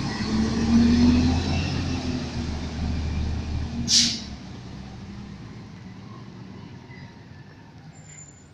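Front-loading garbage truck's diesel engine pulling away, rising in pitch as it accelerates, with one short, sharp air-brake hiss about four seconds in; the engine then fades as the truck drives off.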